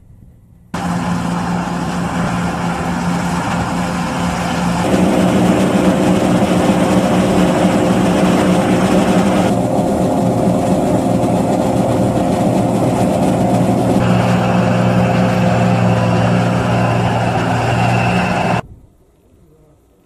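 Diesel engines of farm machinery, a Fendt tractor and a John Deere 2066 combine harvester, running steadily with a deep, even hum. The sound starts abruptly about a second in, changes character abruptly three times, and cuts off near the end.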